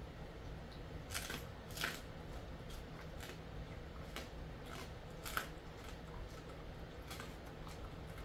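Jindo-mix dog chewing a chicken-foot treat: irregular crunches and clicks, the loudest about a second in, near two seconds and just past five seconds, over a faint steady low hum.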